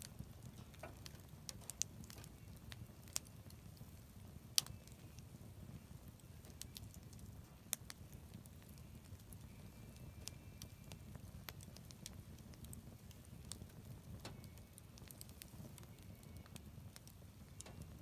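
Wood fire crackling in an outdoor fire pit: irregular sharp pops, the loudest about four and a half seconds in, over a steady low rumble.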